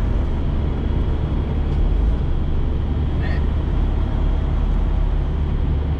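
Freightliner Cascadia semi truck's diesel engine running at low speed, a steady low drone heard from inside the cab.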